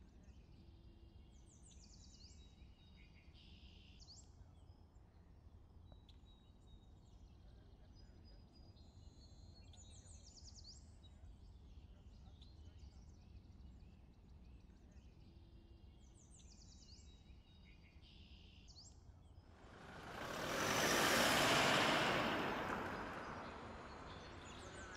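Outdoor ambience of birds chirping in short repeated calls over a low rumble, then a vehicle rushing past, swelling loud and fading away over a few seconds near the end.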